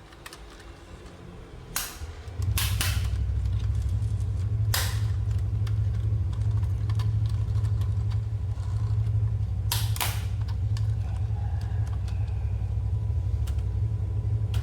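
A battery-powered toy's small motor switches on about two seconds in and hums steadily and loudly, with a few sharp plastic clicks and taps over it.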